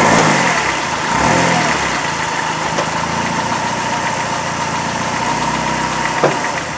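2001 PT Cruiser engine, which has a bad motor mount, being revved in a couple of short throttle blips and then settling to a steady idle. There is a single sharp knock about six seconds in.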